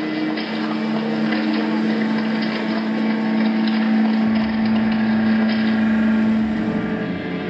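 Ambient music: a low drone note held steadily over a hiss, giving way to shifting notes near the end.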